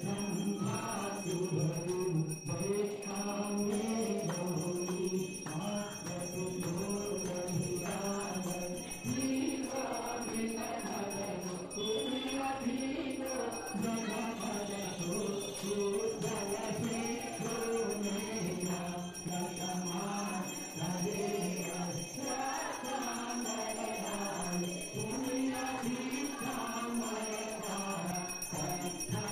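Hindu aarti to Goddess Durga being sung, led by a man singing into a microphone with the worshippers joining in, while bells ring along.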